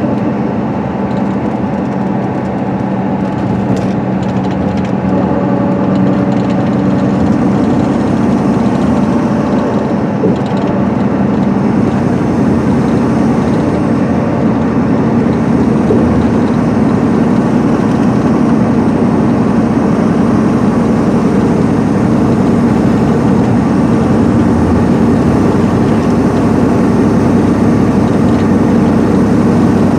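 Steady cabin sound of a 2010 MCI D4500CL highway coach cruising at freeway speed: its Cummins ISM diesel engine running evenly under a constant hum of road and tyre noise, heard from inside the bus.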